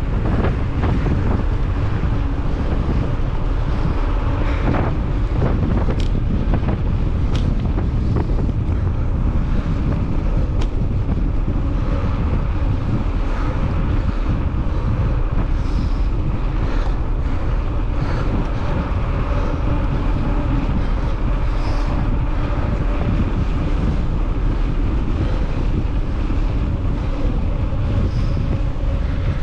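Wind buffeting the microphone of a camera carried on a moving mountain bike, a steady loud rumble with a few sharp clicks in the first half.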